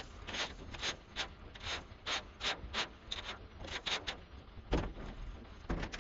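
Leaf rake scraping in quick strokes, about three a second, dragging leftover hedge clippings off a trailer's lowered tailgate and across the dirt. Near the end come two heavier thuds as the trailer tailgate is swung up and shut.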